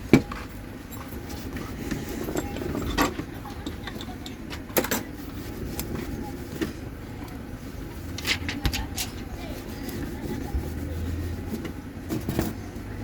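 Scattered small clicks and taps of a phone and tools being handled during a repair, a few seconds apart, over steady low background noise.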